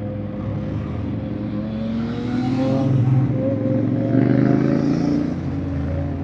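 Honda X-ADV 750's parallel-twin engine accelerating under the rider: the engine pitch climbs, drops briefly at a shift a little past halfway, then climbs again before easing off near the end.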